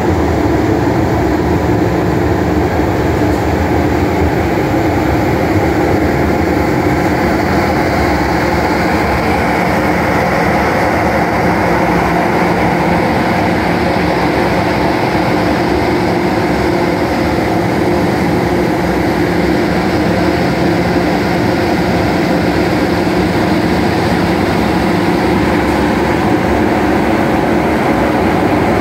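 Large centrifugal blower of a cotton seed dryer, driven by an electric motor, running: a loud, steady drone with a constant low hum that does not change.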